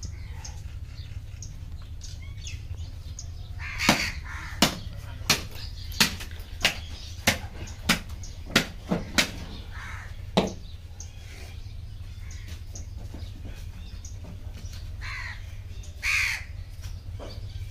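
Crows cawing a few times over a steady low hum, with a run of about a dozen sharp, evenly spaced knocks, roughly three every two seconds, through the first half.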